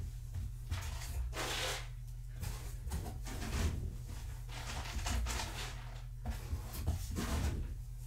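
Short rustling and scraping swishes, several spaced a second or so apart, from things being handled and moved, over a steady low hum.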